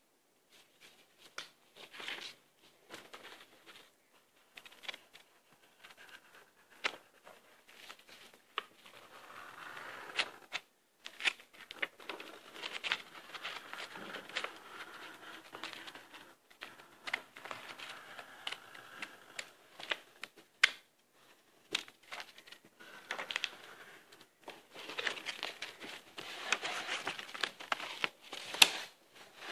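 Felt-tip permanent marker scratching across paper in short irregular strokes as the outline is inked, with rustling of the sheet and a few sharp clicks.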